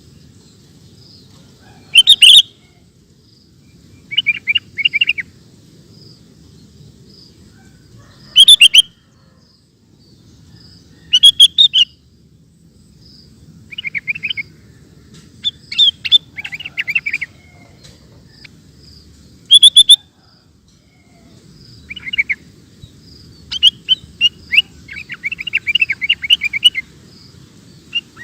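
Sooty-headed bulbul (kutilang) singing loud, short chirping phrases every few seconds. The phrases come faster and run together near the end in a rapid chattering string.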